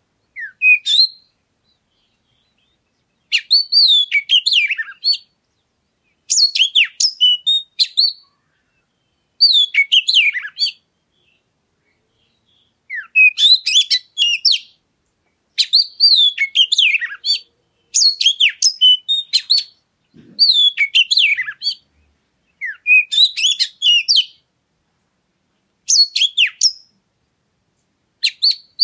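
Oriental magpie-robin (kacer) singing: short phrases of quick, varied, high whistles and chirps, each one to two seconds long, about ten of them repeating every two to three seconds with silence between.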